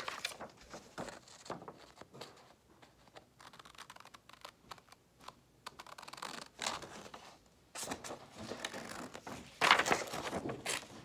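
Scissors snipping through a sheet of paper in short, uneven cuts, with the paper rustling as it is turned and handled.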